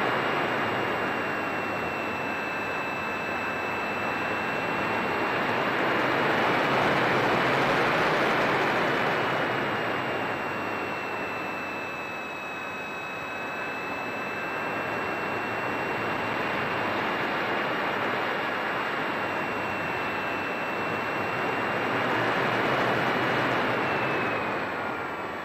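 RC model airplane's motor and propeller heard from an onboard camera in flight: a steady high whine over rushing wind noise that swells and eases. The whine drops in pitch near the end.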